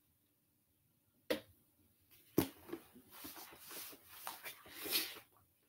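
Handling and movement noise close to the microphone. A click comes about a second in and a sharper knock a moment later. Then about three seconds of rustling and shuffling, which stops shortly before the end.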